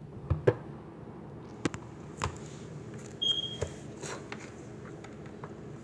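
Handling noise from a cut-open football: a scattering of short, sharp taps and clicks, with one brief high squeak about three seconds in, over a low steady hum.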